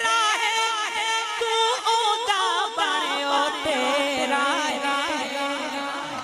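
Wordless melismatic singing in a Punjabi naat: one voice winding up and down through quick ornamented turns over a steady held drone beneath, growing softer near the end.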